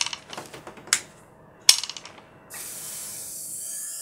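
A few sharp clicks as the soldering iron is handled in its metal stand. Then, from about two and a half seconds in, a steady hiss of steam as the hot soldering tip meets the stand's wet cleaning sponge.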